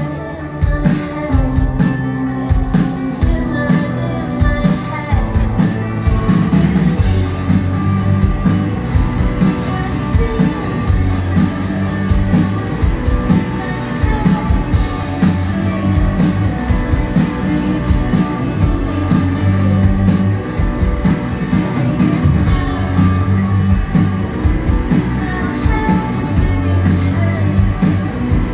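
A rock band playing live: a woman singing over electric guitars and drums, with a pulsing bass line and steady drum beat, as heard from the audience.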